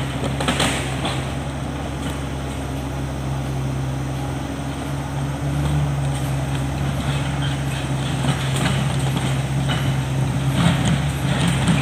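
Crawler bulldozer's diesel engine running steadily as the machine crawls down a rough dirt track with logs in tow, getting slightly louder as it comes closer. Scattered clanks and cracks from the tracks and the dragged wood come about half a second in, around eight seconds, and near the end.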